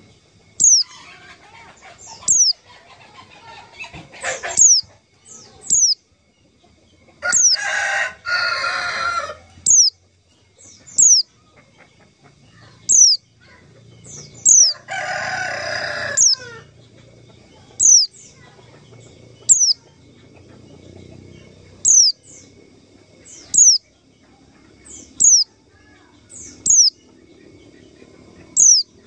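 White-eye (pleci) calls: short, high whistled notes, each dropping quickly in pitch, repeated every second or two and often in quick pairs. Twice a longer, harsher call of about two seconds breaks in.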